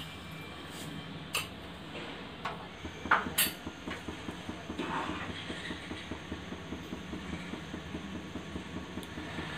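A few clinks of a steel spoon on steel in the first seconds, then a dense, even ticking as a pan of thickened milk bubbles on the gas stove and is stirred with a steel spatula.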